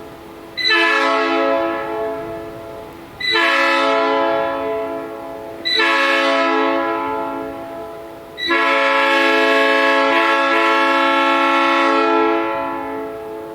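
Nathan AirChime P3 three-chime air horn blown in four blasts: three short ones, each tailing off slowly, then one long held blast that fades out near the end. It is run on a double-diaphragm setup that its owner finds sounds a bit harsh.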